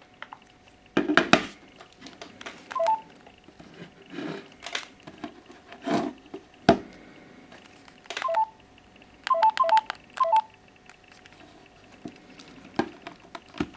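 Mobile phone keypad tones as keys are pressed: one short beep about three seconds in, then a quick run of four or five near the end. Between them come sharp clicks and knocks from the phone being handled, the loudest of them early on and about halfway through.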